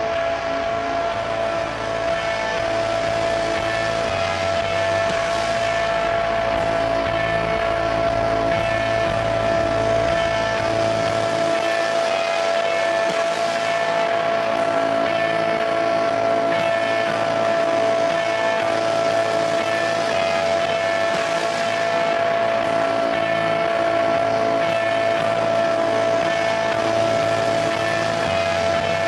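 Live electronic drone played from a laptop: a dense mass of steady held tones, the strongest a high sustained note. A deep low rumble beneath it drops away about a third of the way in, returns briefly, then drops away again.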